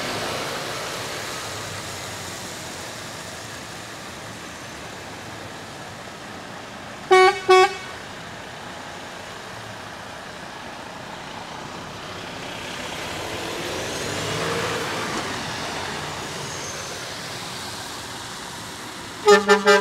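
Trucks passing by in a convoy, their engine and tyre noise swelling and fading. Two short horn toots sound about seven seconds in, and near the end a louder horn gives three quick blasts and a longer one.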